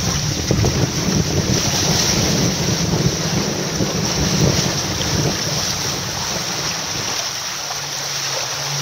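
Strong wind buffeting the microphone aboard a sailing catamaran under way, with the sea washing past the hulls: a steady, heavy rush that eases slightly near the end.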